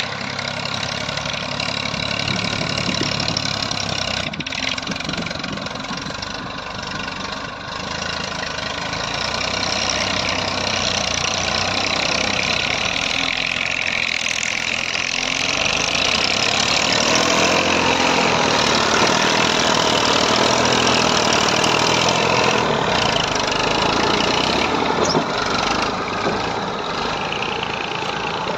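Massey Ferguson 1035 DI tractor's three-cylinder diesel engine running as the tractor drives through loose sand, getting louder about a third of the way in, with its pitch wavering up and down in the second half.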